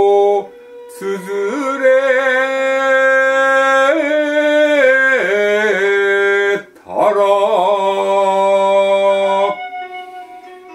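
Shigin-style chanting of song lyrics (kayō ginei): a voice drawing out syllables in long held notes with wavering ornamental turns, broken by short breaths about half a second in and near the middle, and dropping quieter near the end.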